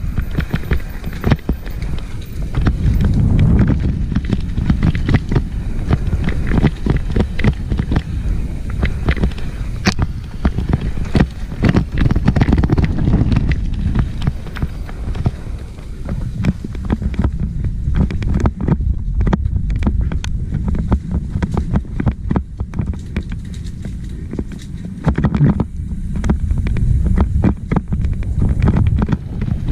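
Downhill mountain bike riding over a muddy, rocky track: a steady rumble of wind on the microphone with many sharp, irregular knocks and clatters as the bike hits rocks and ruts.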